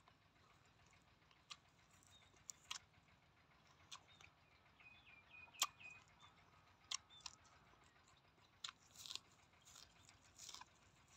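Faint, scattered crisp snaps as sprigs of fresh herbs are picked off the stems by hand, then soft crunching as a mouthful of raw leafy herbs is bitten into near the end.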